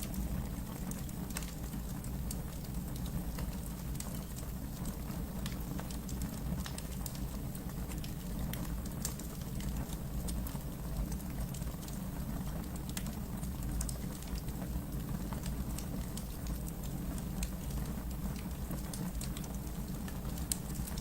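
Wood fire burning in a fireplace: a steady low rumble of the flames with frequent scattered crackles and pops from the burning wood.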